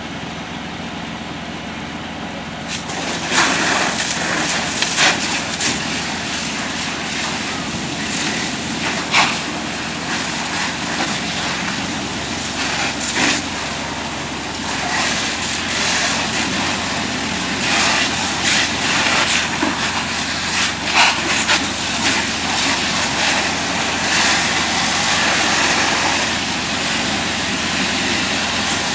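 Fire hose stream opening up about three seconds in and spraying steadily onto a burning car, with a loud, even hiss of water and steam and sharp crackles now and then. A steady low engine hum runs underneath.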